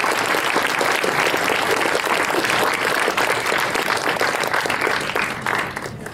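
Audience applauding: dense clapping from many people that dies away near the end.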